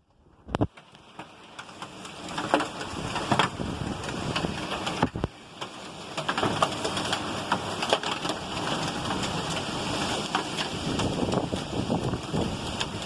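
Heavy rain and hail coming down hard in a storm: a steady rushing hiss dotted with many sharp ticks of stones striking. It swells over the first few seconds, then holds steady.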